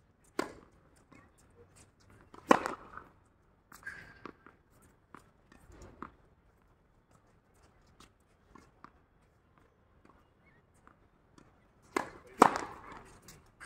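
Tennis balls struck with rackets: a few sharp, spaced-out pops, the loudest about two and a half seconds in and another pair near the end, with fainter taps between.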